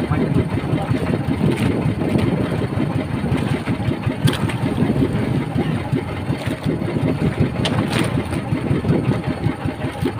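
Outrigger fishing boat's engine running steadily, with a few short knocks over it.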